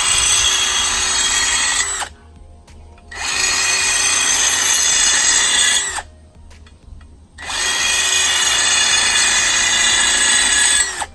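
Power tool with a grinding wheel sharpening a steel lawn mower blade's cutting edge, running in three passes of about three seconds each with short pauses between: a steady motor whine over a grinding hiss.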